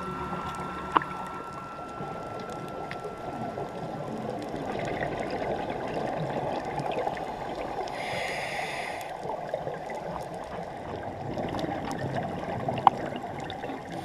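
Muffled underwater sound on a scuba dive: a steady gurgling wash of water and breathing bubbles, with a brief hiss about eight seconds in and a couple of sharp clicks.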